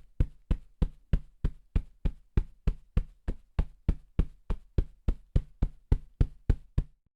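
A hand striking a solid sofa cushion in a fast, even rhythm of about three dull thumps a second, the Foley stand-in for a helicopter's rotor beats. The thumps stop abruptly near the end.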